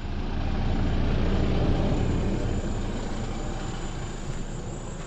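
Steady rushing road noise of a four-wheel-drive ute driving on a dirt road: tyres on gravel and wind, with no clear engine note. It eases slowly after the first second or two.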